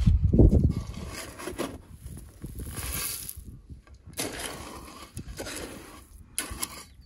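Metal shovel digging into dry gravel mixed with small seashells, several separate strokes, the first the heaviest.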